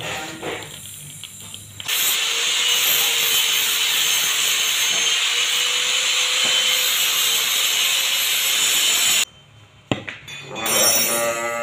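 Stick (arc) welder crackling and hissing steadily as the rod lays a bead on the steel body of a motorcycle exhaust muffler. It starts about two seconds in and cuts off abruptly about seven seconds later, followed by a single sharp click.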